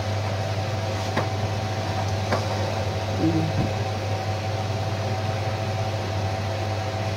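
Steady low electrical hum with fan-like noise from a running kitchen appliance, with a couple of faint clicks about a second in and again about two and a half seconds in.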